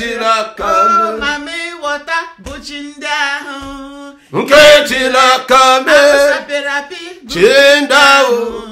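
A man and a woman singing a worship song without instruments, in phrases with held, wavering notes and a short break about four seconds in.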